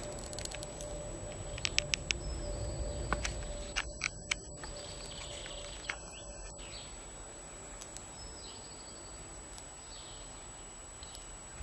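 Male tortoise mating in a mount, giving short high squeaks now and then, with a few sharp clicks of shells knocking together, most of them around the first few seconds.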